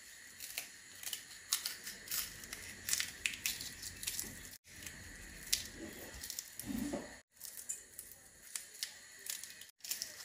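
Fried dried red chillies crackling and crinkling as they are crushed between the fingers, in light, irregular crackles that break off briefly three times.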